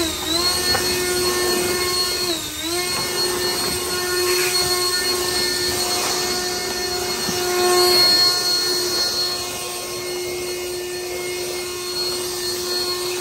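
A small electric motor running with a steady whine. It sags in pitch briefly twice, as if loaded, once near the start and again about two and a half seconds in.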